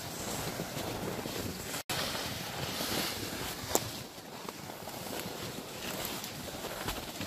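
Steady wind rushing over the microphone outdoors, with a brief cut-out about two seconds in and a single sharp click a little later.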